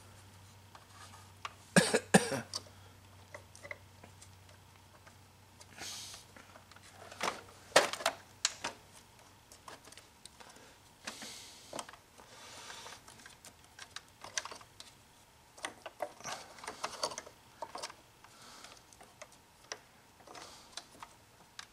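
Irregular clicks, knocks and brief rustles of a clear plastic air-filter bowl being handled and worked up onto a plasma cutter's air filter-regulator, trying to seat it over its O-ring.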